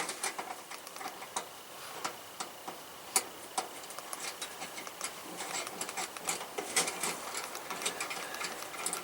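Light, irregular metallic clicks and taps of titanium stove legs being handled and threaded into the stove's leg platforms.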